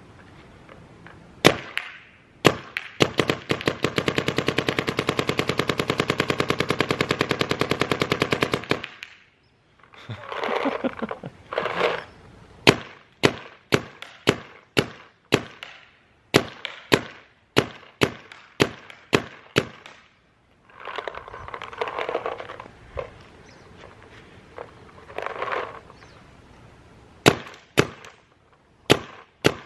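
DLX Luxe OLED electronic paintball marker firing one-handed off a compressed-air tank: two single shots, a rapid string of shots for about six seconds, then steady single shots spaced under a second apart and a quick cluster near the end. A few short rushes of noise fall in the pauses between shots.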